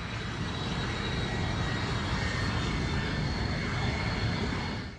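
Aero L-39 Albatros jet trainer's single turbofan engine running as the jet rolls over the grass: a steady rushing noise with a high, even whine held over it.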